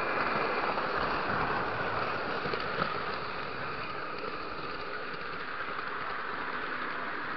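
Lionel model train rolling around its track, a steady rumbling whir of wheels and motor heard up close from a camera riding on the train, easing slightly about three seconds in.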